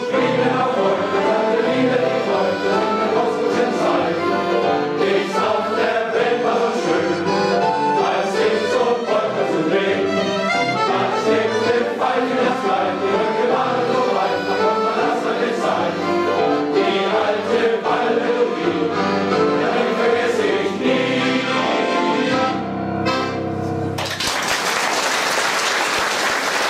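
Men's choir singing with accordion accompaniment; the song ends a few seconds before the end and applause follows.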